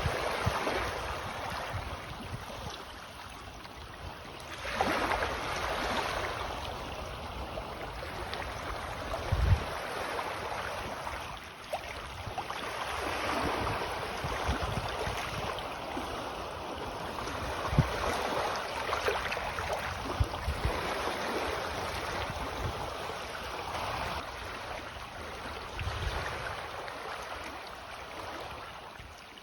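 Small sea waves lapping at the shore on a rising tide, a steady wash of water that swells and fades every few seconds, with a few brief low thumps.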